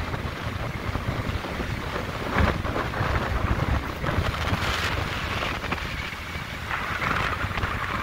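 Wind buffeting the microphone over the steady rush of large Lake Michigan storm waves breaking and washing up the flooded beach, with a few brief gusts.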